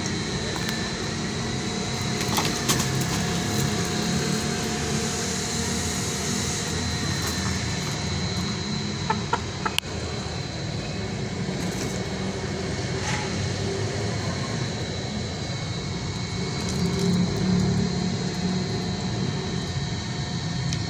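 Steady mechanical rumble with a constant hum, like a running motor or traffic, with a few sharp clicks about nine to ten seconds in.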